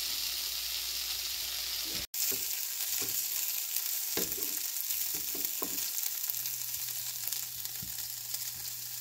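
Devilled chicken and peppers sizzling in a frying pan, with the stove just turned off. The sizzle cuts out briefly about two seconds in, then goes on under a few knocks of a serving spoon against the pan.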